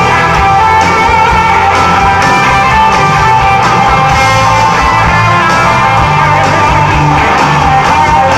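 Live rock band playing loudly: electric guitars over a drum kit.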